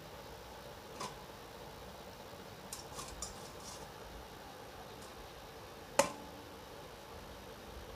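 Light clicks and taps on a kitchen work surface as dough is cut into portions, then one sharp knock with a brief ring about six seconds in.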